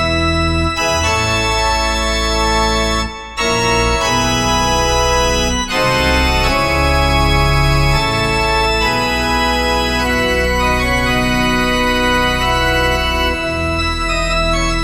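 Yamaha CP4 Stage digital piano playing an organ patch: held chords that change every few seconds, with a short break about three seconds in.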